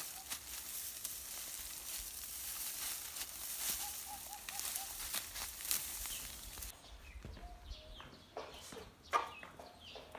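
Dry oilseed rape stalks and seed pods crackling and rustling as they are cut with a sickle and gathered by hand. The crackling stops suddenly about two-thirds of the way through, and a rooster's short, soft clucks follow.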